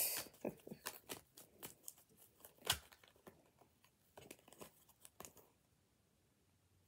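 Tarot cards being handled and shuffled: a string of irregular crisp card clicks and rustles, the sharpest about three seconds in, stopping after about five and a half seconds.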